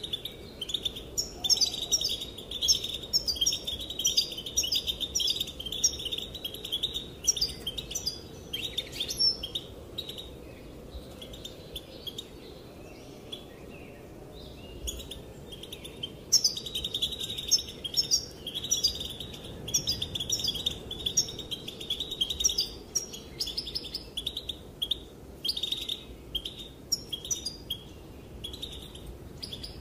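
Female European goldfinch calling: rapid, high twittering chirps in long runs, with a pause of several seconds near the middle before the twittering starts again.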